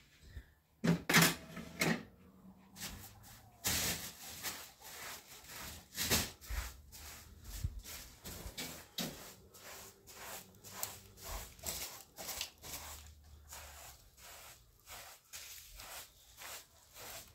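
Irregular knocks, clicks and clatter of objects being handled, loudest about a second in.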